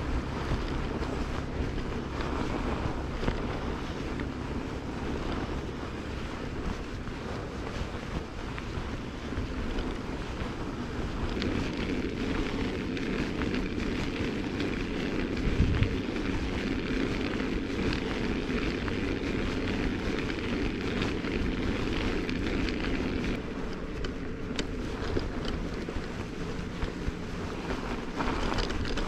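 Steady wind noise buffeting the camera microphone, with a single short thump a little past halfway.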